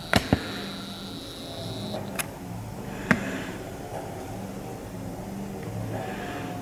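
A steady low mechanical hum, with a faint high whine that stops about two seconds in. Over it come a few sharp clicks: two in quick succession at the very start, then single ones about two and three seconds in.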